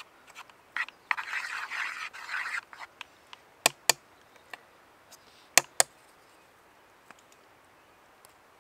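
Eating utensils scraping against dishware for a second or so, then two pairs of sharp clicks, like utensils knocking on a plate or pan, with a few faint ticks.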